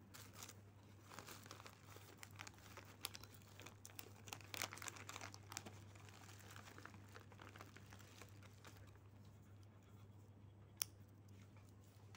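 Near silence: a low steady hum with faint scattered clicks and rustles, and one sharp click near the end.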